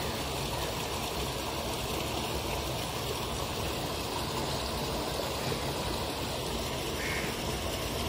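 Steady rushing of flowing water, an even wash of sound with no rhythm or pitch.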